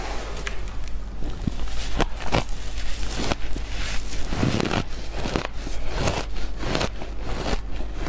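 Crumbly refrozen shaved ice being bitten and crunched between the teeth, in irregular sharp crunches, mixed with the grainy scrape of hands scooping ice from a tray.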